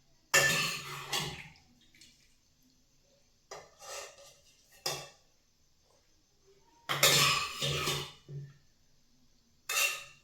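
Dishes and utensils clattering and scraping in five short bursts, the loudest near the start and about seven seconds in.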